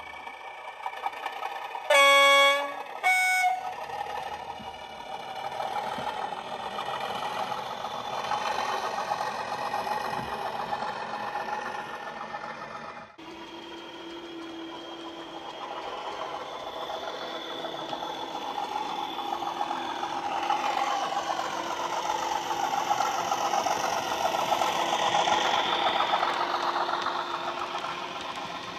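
Sound decoder in a model Class 37 diesel locomotive, playing through its small onboard speaker: the simulated diesel engine runs, and about two seconds in the two-tone horn sounds, a longer low note then a short high one. The engine sound then builds as the locomotive pulls away, and after a sudden change about 13 seconds in the engine sound grows louder again toward the end as the train runs by.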